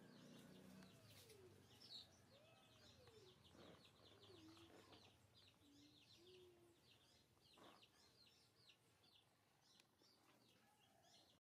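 Baby monkey giving faint, arching coo calls, about five in the first seven seconds, calling for its mother to be fed. Small birds chirp continuously behind it.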